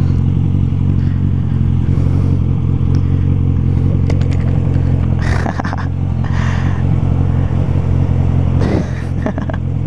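Inline-four motorcycle engine idling steadily at a stop, through an aftermarket exhaust.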